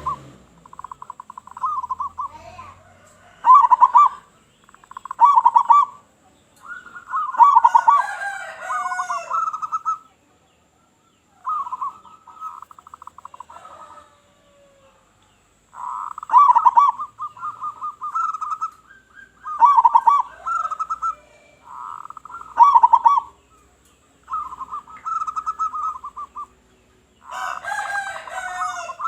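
Zebra doves cooing: repeated phrases of fast, rolling pulsed notes, each a second or two long, with short pauses between. Higher-pitched twittering from another bird joins twice.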